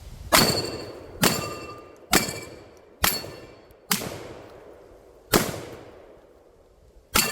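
Seven gunshots fired at a Texas Star steel target, about one a second with longer pauses before the last two, several of them followed by the brief ringing of a struck steel plate.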